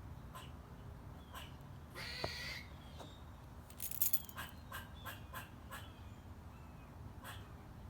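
Squirrel calling: short chirps, then one harsh, raspy call about two seconds in. A quick run of sharp clicks follows about a second later, then more single short chirps and clicks.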